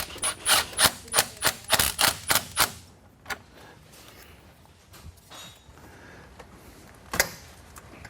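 Ratchet wrench clicking in a quick run of sharp strokes, about four a second for nearly three seconds, followed by a few scattered single clicks, one louder near the end.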